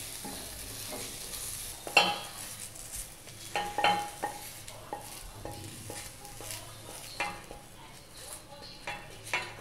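A spatula scrapes and knocks against an Amway Queen stainless steel sauté pan as fried paneer is scraped out of it, giving several sharp clicks, a few of them ringing briefly. The leftover hot oil still sizzles faintly.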